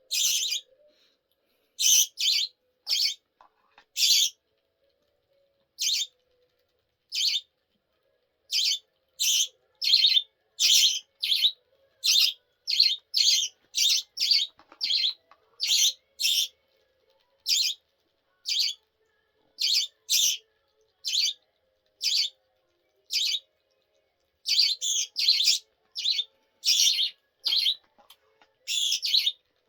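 Budgerigar calling: about thirty short, sharp, high chirps, some single and some in quick runs of two or three.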